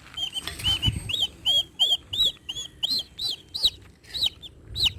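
Turkey and guinea fowl chicks peeping repeatedly, short high chirps about three a second.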